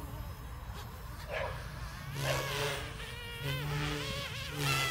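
Small electric RC helicopter (a resin-printed Goosky S2) in flight: a whining motor that wavers up and down in pitch, with a rotor whoosh swelling twice.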